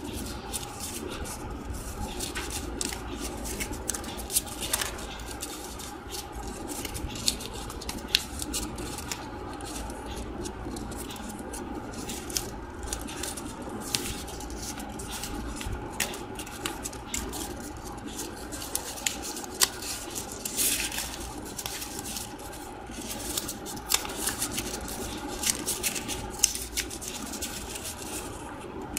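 Paper crinkling and crackling in many small irregular snaps as a spiral-cut strip of paper is rolled up tightly between the fingers, over a faint steady hum.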